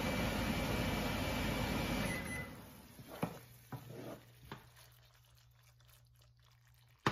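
Mashed tomatoes sizzling in a hot nonstick frying pan while being stirred with a wooden spoon, cooking off excess moisture over medium heat. About two seconds in the sizzle dies away, leaving a few light knocks over a faint steady hum.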